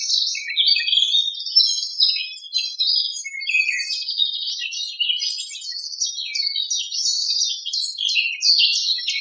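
Felt-tip marker scribbling on a whiteboard: a fast, unbroken run of short, high, scratchy squeaks with nothing deep underneath.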